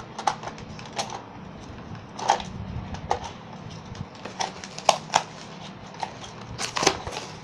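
Irregular clicks and crackles of a doll's plastic-and-cardboard retail packaging being handled and pulled apart, with a few sharper clicks in the second half.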